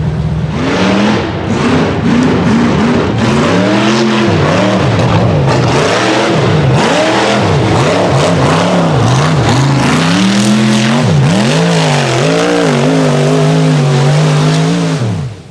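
Off-road race buggy's 434 small-block V8 revving hard over and over, the pitch climbing and dropping roughly once a second, over a steady noisy rush. The sound cuts off abruptly at the very end.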